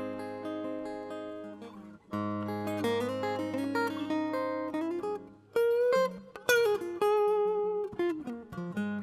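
Solo acoustic guitar playing, ringing chords and single notes, with a brief pause about two seconds in and a few notes sliding up and down in pitch about halfway through.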